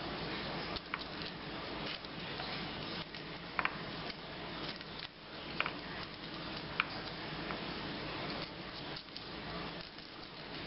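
Small paring knife peeling the dry, papery skin off garlic cloves on a wooden cutting board: light scraping and crackle of skin, with a handful of sharp little clicks scattered through, over a steady background hiss.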